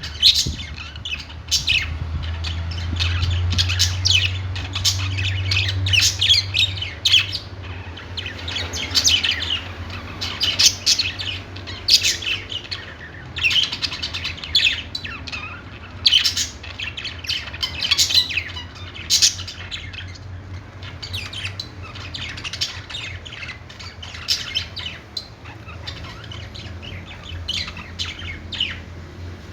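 Several budgerigars chirping and squawking in quick, overlapping calls, over a steady low hum that is louder in the first few seconds.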